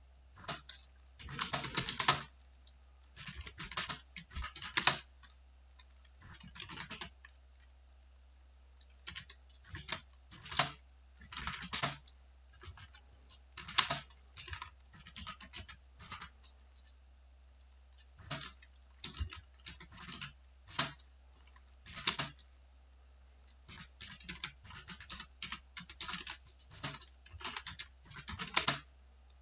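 Computer keyboard being typed on in irregular runs of rapid key clicks, broken by short pauses, over a faint steady low hum.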